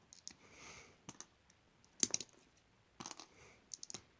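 LEGO plastic pieces clicking and tapping as they are handled, in small scattered clusters with a couple of soft sliding scrapes; the loudest clatter comes about two seconds in.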